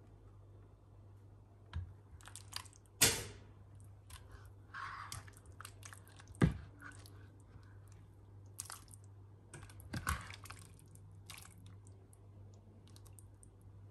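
A ladle knocking and clinking against the rim of a cooking pan and a serving bowl as soup is ladled out, with a brief pour of liquid around five seconds in. The loudest knock comes about three seconds in and rings briefly, with another sharp knock about halfway through, over a steady low hum.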